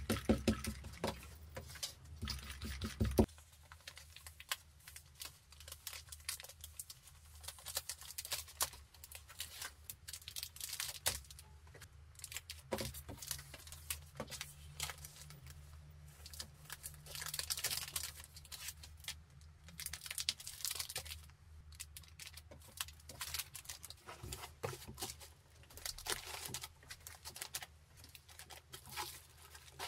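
A sticky lint roller rolling over cloth pouches for about the first three seconds, then the rustling, crinkling and tearing of plastic packaging and bubble wrap as an order is wrapped and packed, in short irregular bursts.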